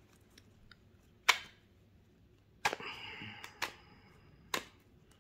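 Deck of oracle cards being shuffled by hand: about four sharp card snaps, with a short rustle of cards sliding together after the second.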